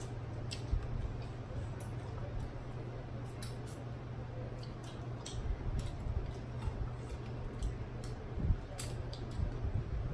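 Crab leg shells cracking and being picked apart by hand, with irregular sharp clicks and snaps and wet eating sounds. A steady low hum runs underneath.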